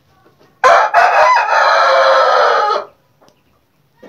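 Afghan aseel rooster crowing once, a single long, loud crow of about two seconds that begins about half a second in and cuts off sharply.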